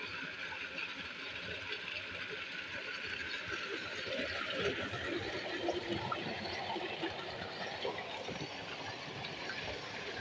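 Water gushing steadily from a tubewell outlet pipe and splashing into a brick tank.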